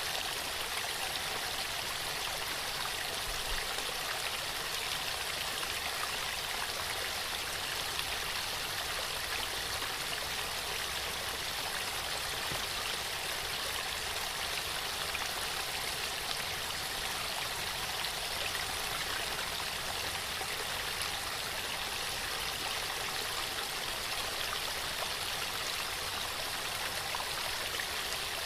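Waterfall: water falling and running in a steady, unbroken rush.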